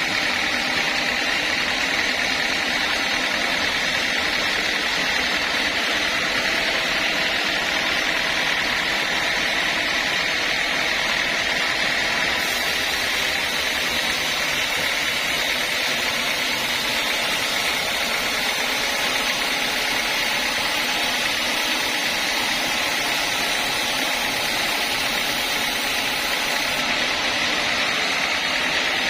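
Sawmill saw running steadily through teak, a constant machine noise with a steady high whine that does not change.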